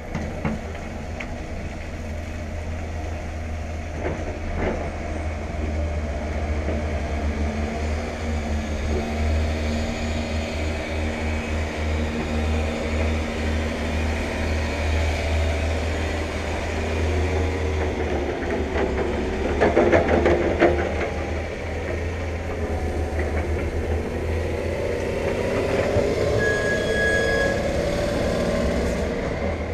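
Heavy earthmoving machinery working on the silted riverbed: an engine running steadily under a deep rumble, with a burst of clanking about two-thirds of the way in and the engine note rising near the end.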